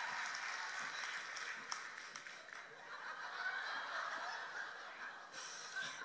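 Studio audience laughing, mixed with some clapping, slowly dying down.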